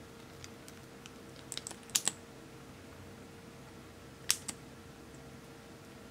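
Small sharp plastic clicks as a lip-tint tube is opened and handled: a quick cluster about two seconds in, the loudest two close together, then two more clicks a little past four seconds.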